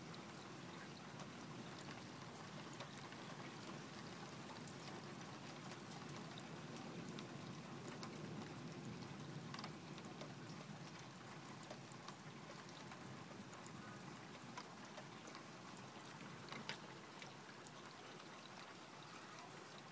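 Steady rain falling, with occasional sharper ticks of single drops striking close by; no thunder.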